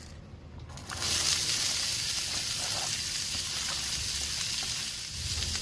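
Chopped sweet onion sizzling in bacon grease on a hot flat-top griddle. The steady sizzle starts suddenly about a second in as the onions go down.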